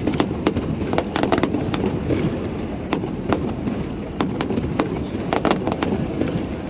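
Fireworks going off: an irregular run of sharp cracks, several a second, over a steady low rumble.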